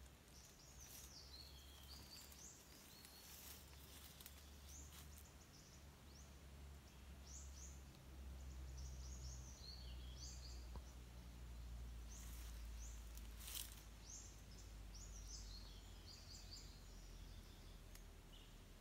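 Near silence: faint outdoor ambience with scattered short high bird chirps over a low steady rumble, and a few brief faint rustles.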